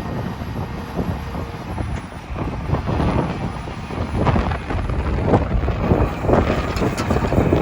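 Low rumble of the John Deere 350D LC excavator's diesel engine running, with gusts of wind on the microphone.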